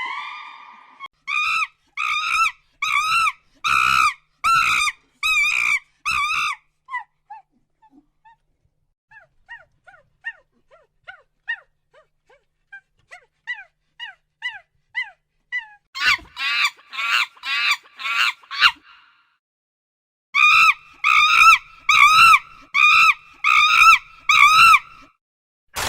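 An animal's short, high-pitched calls, repeated about two a second in several bouts. Between the bouts come fainter, quicker falling chirps.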